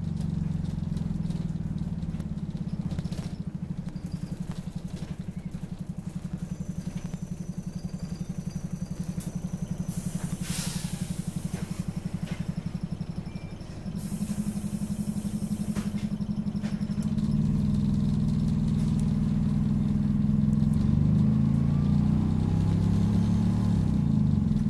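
Optare Solo bus engine heard from inside the bus, running with a steady low chugging and a fast even pulse. It grows louder about fourteen seconds in and again near seventeen seconds, its pitch wavering near the end as it works harder. Short bursts of air hiss come about ten and fourteen seconds in.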